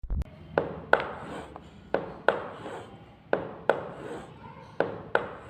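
Heart sounds demonstrating mitral stenosis: a slow, even lub-dub beat, four beats about 1.4 s apart, each a pair of sharp sounds, with a rushing murmur filling the gaps between them.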